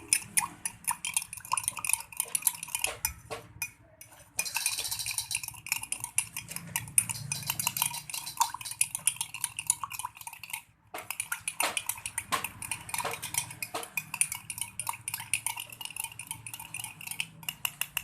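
A spoon stirring a drink in a drinking glass, clinking rapidly against the glass, with two short pauses.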